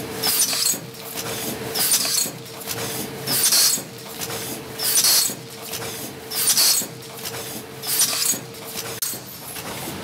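Automatic pouch packing machine running through its cycle, with a short hiss about every second and a half over a steady hum that stops about a second before the end.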